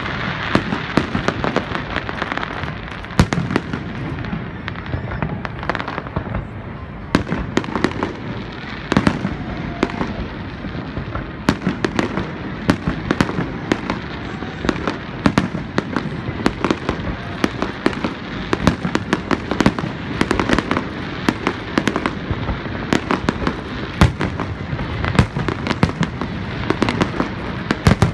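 Fireworks display: a dense, irregular barrage of bangs and crackling shell bursts, several a second, over a continuous rumble.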